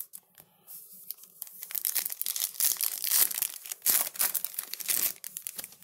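Plastic crinkling and rustling as trading cards are handled: rapid crackles that build about a second in and stop just before the end.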